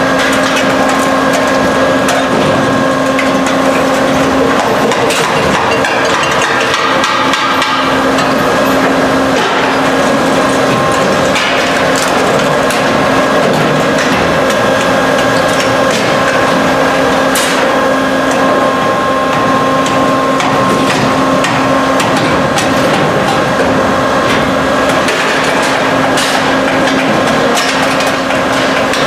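Catalytic converter guillotine running: a loud, steady machine hum with repeated metallic clanks and clatter as converter shells are chopped and handled in its steel tray.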